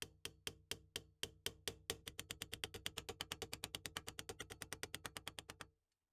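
Small rotary tool running with a steady hum and a regular clicking, about four clicks a second at first, then about eight a second, which stops suddenly near the end.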